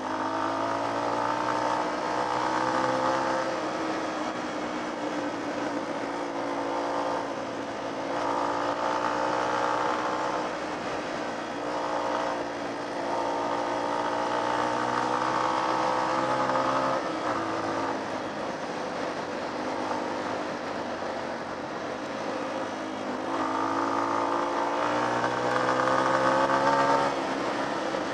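Off-road motorcycle engine being ridden, revving up and easing off again several times with its pitch rising and falling.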